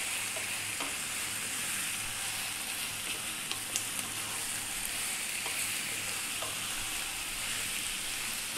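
Diced lamb and sliced onions sizzling steadily in olive oil in a frying pan over above-medium heat, stirred with a wooden spatula, with a few faint clicks about three to four seconds in. A faint steady low hum runs underneath.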